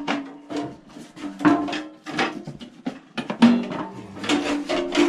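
Repeated knocks and clatter of a small engine's gas tank being wrestled free of its mounting clamps, over sustained notes of background music.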